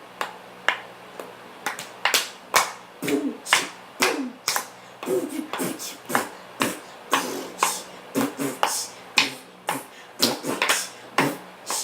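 A child beatboxing: a string of sharp mouth pops and clicks, some with a short voiced sound, about two or three a second and getting busier in the second half.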